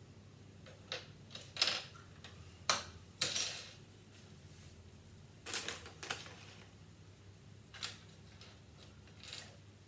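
Loose plastic Lego pieces clattering and rattling in short bursts as someone rummages through them for a part, over a low steady hum.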